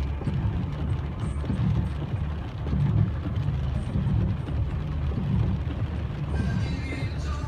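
Low, uneven rumble of a vehicle running, with faint steady tones coming in near the end.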